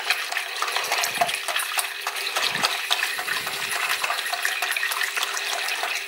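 Silicone-coated balloon whisk beating a thin custard mixture in a ceramic bowl: fast, steady sloshing with rapid clicking of the wires against the bowl.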